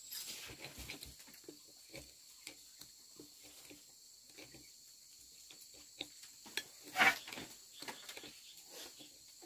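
People eating: soft chewing and the small irregular clicks of chopsticks against bowls, with one louder clatter about seven seconds in. A faint steady high-pitched tone runs underneath.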